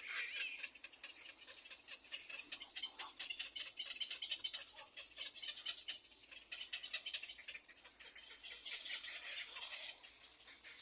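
Little egret chicks in the nest giving rapid, rasping, clicking begging calls for food, which go on without a break.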